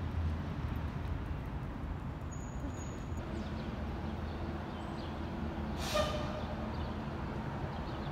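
Steady low rumble of distant city traffic, with one brief sharp sound about six seconds in.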